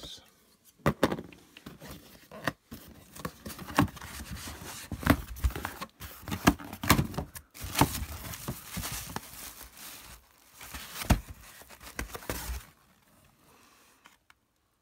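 Cardboard shipping box being opened and unpacked by hand: irregular rips, scrapes and knocks of cardboard mixed with crinkling plastic packaging, stopping shortly before the end.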